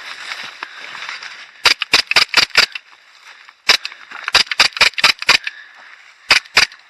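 Airsoft guns firing sharp snapping shots in short strings: a rapid run of about six, a single shot, another rapid run of about six, then two more near the end.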